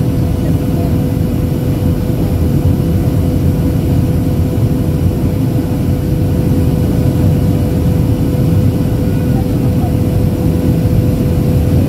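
Steady cabin noise inside a Boeing 737-800 in flight, heard from a window seat over the wing: the low rumble of its CFM56 turbofan engines and airflow, with a steady hum at a middle pitch.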